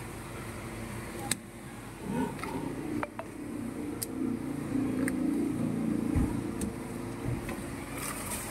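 Plastic 20-litre water jars being handled, with several sharp clicks and knocks, over a steady motor hum that swells in the middle.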